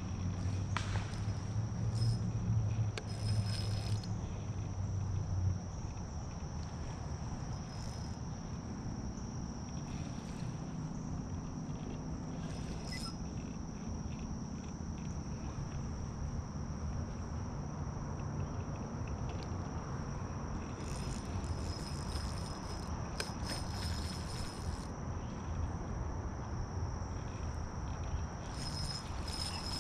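Insects trilling in a steady, high-pitched drone, with short, higher buzzing flurries coming and going on top. A low rumble runs under it for the first five seconds or so.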